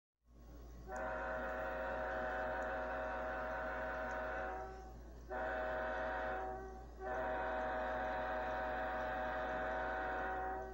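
A multi-note train horn sounding a chord, played through a television speaker: a long blast, a short one, then another long one, over a steady low hum.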